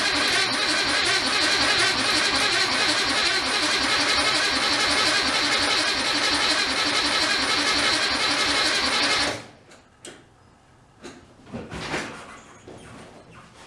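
The starter of a 1964 VW Beetle's 1500cc air-cooled flat-four cranks the engine steadily without it firing, because the coil power wire has come off and there is no spark. The cranking stops abruptly about nine seconds in, followed by a few faint knocks.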